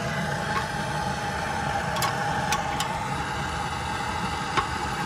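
Steady engine-like hum, with a few light metallic clicks of hand tools: four sharp clicks in the second half.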